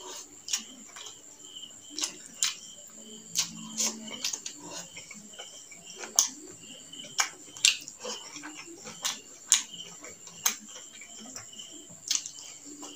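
Close-up eating sounds from chewing rice and chicken gizzard curry: chewing and sharp lip smacks, one every second or so. Under them runs a steady high-pitched cricket chirp.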